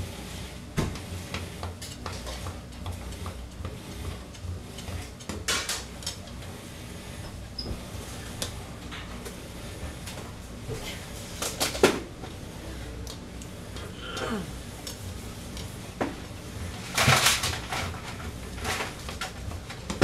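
Sashimi knife tapping and scraping on a cutting board as flounder fillets are sliced, with scattered light clicks and a few louder clatters, the loudest about 17 seconds in, over a low steady hum.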